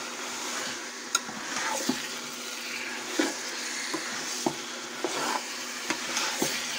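Raw beef mince sizzling in hot oil with onions as a metal spoon stirs it round a metal pot. Irregular clinks and scrapes of the spoon against the pot ring out over a steady frying hiss.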